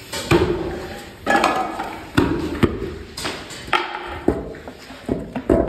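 Metal utensils clanking and knocking irregularly, about a dozen strikes, some ringing briefly, as cookware is handled.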